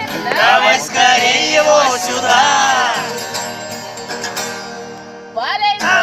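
Singing to a nylon-string classical guitar: a sung line over strummed chords for about the first three seconds, then the guitar alone with its chords fading, and voices coming back in near the end.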